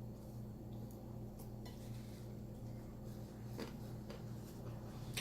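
Steady low hum with a few faint, scattered clicks and taps.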